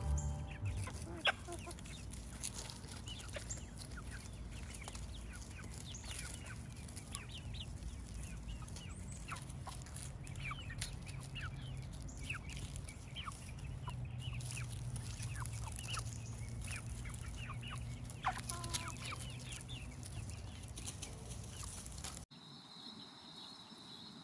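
A flock of free-ranging chickens clucking as they forage, many short calls scattered throughout over a steady low background rumble. About two seconds before the end the sound cuts to a quieter, steady high-pitched drone.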